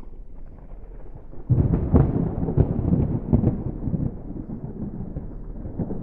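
Thunder after a lightning flash: a sudden loud crash about a second and a half in, then rolling rumble broken by several sharper cracks, slowly fading.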